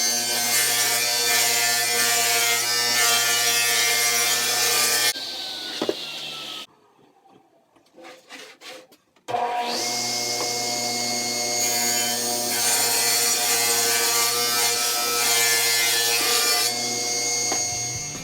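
Electric power saw cutting wood. About five seconds in the motor is switched off and winds down with a falling whine. After a short pause with a few small knocks it starts again with a rising whine and cuts for several more seconds.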